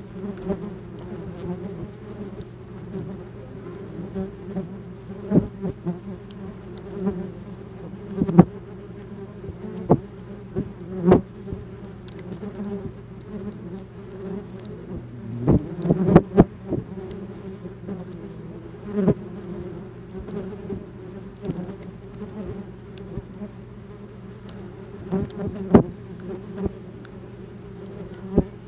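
Wasps buzzing close around a GoPro camera in a steady drone, with sharp taps every few seconds, the heaviest cluster about halfway through, as wasps strike the camera and lens: wasps attacking the camera beside their nest.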